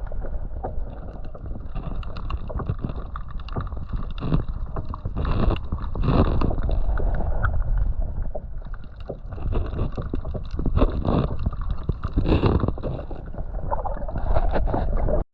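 Wind buffeting the microphone and water sloshing around a fishing kayak, in uneven gusts.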